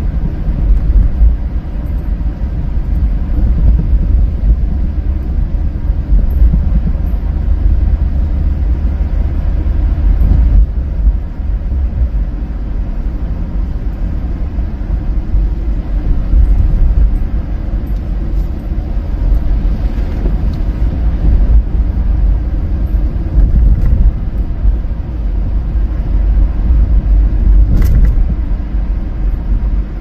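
Steady low rumble of a car driving on a snow-covered road, heard from inside the vehicle, with a single short knock about two seconds before the end.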